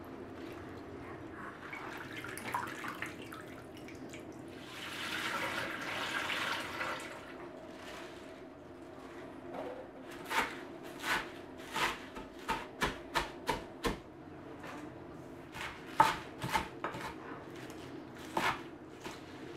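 Fresh spinach being swished by hand in a bowl under a running kitchen tap, then a kitchen knife chopping the spinach on a wooden cutting board. The chopping comes as a quick run of sharp chops from about halfway through, then a few more scattered chops near the end.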